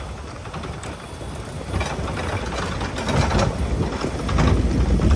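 A Ford 4x4 driving slowly over a rough dirt track: the engine rumbles low under crackly tyre-and-gravel noise. The noise gets louder about two seconds in and again near the end.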